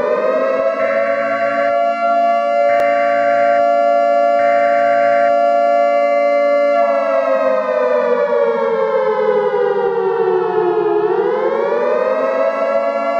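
Civil defense siren holding a steady pitch, with three short bursts of buzzy data tones, the EAS alert header, over it in the first five seconds. About seven seconds in, the siren winds down in pitch, then starts winding back up near the end.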